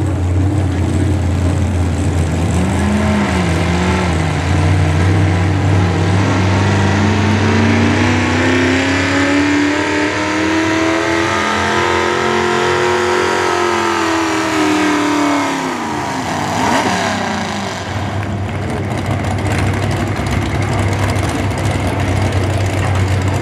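Hot rod pulling tractor's V8 engine working under load against the weight-transfer sled. Its note wavers at first, climbs steadily for about ten seconds, then drops away near the end of the pull, over a steady low drone.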